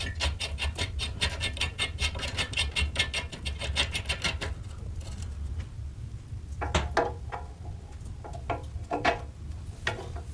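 Rapid, even metallic clicking as a nut and bearing cup are worked by hand on the steering head of a Riga 12 frame, stopping about four and a half seconds in. After that come a few separate light metal clicks and taps as a bolt is fitted into the frame.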